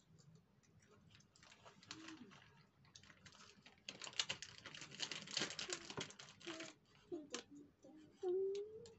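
Plastic snack wrapper crinkling in a toddler's hands, a dense crackle that is heaviest from about four to seven seconds in. Near the end comes a short, rising vocal sound from a toddler.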